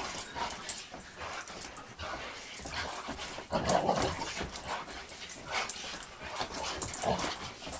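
Dog playing roughly with a shoe on a rug: irregular scuffling and chewing, with a few short vocal sounds from the dog, the clearest about three and a half seconds in.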